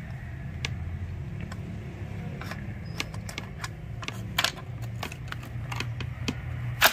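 Scattered clicks and knocks of a chainsaw's plastic top cover being unscrewed and lifted off by hand, with a sharper knock near the end, over a low steady hum.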